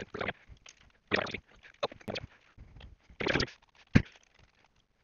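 Handling noise from a wireless microphone receiver's case being turned over on a workbench: short scrapes and rustles, then one sharp knock about four seconds in as it is set down on the table.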